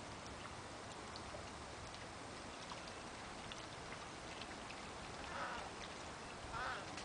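Outdoor ambience at a shallow pond where wading birds are feeding: a steady faint hiss with many scattered small ticks, and two short calls, one about five and a half seconds in and one near the end.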